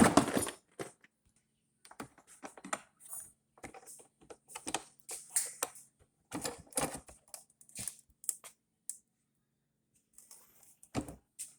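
Hard plastic Milwaukee PACKOUT tool cases and organizer bins being handled: a run of irregular clicks and light knocks as they are unlatched and pulled out. The noise is loudest right at the start.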